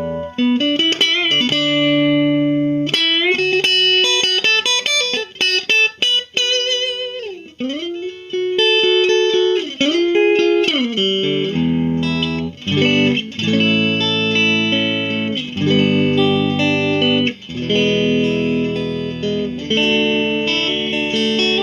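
Squier Classic Vibe '50s Duo-Sonic electric guitar on its neck pickup, playing blues licks with string bends and chords, picked hard. The guitar is somewhat out of tune on freshly fitted strings.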